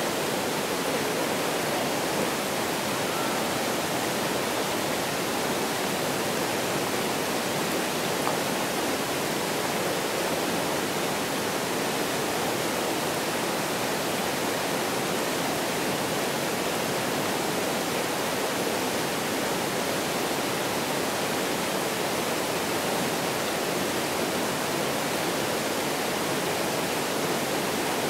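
Kurobe River headwaters mountain stream rushing, a steady, unbroken water noise.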